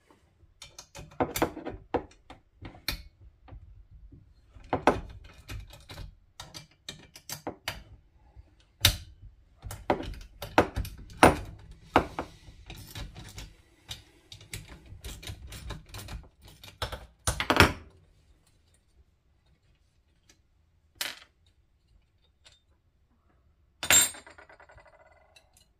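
Hand tools and small metal parts clicking and clinking against a chainsaw while its muffler and exhaust screen are taken apart. There is a dense run of sharp clicks, then a few single knocks, the loudest near the end with a brief ring.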